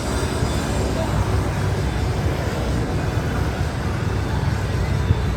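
Steady road traffic noise, a constant low rumble with no single vehicle standing out.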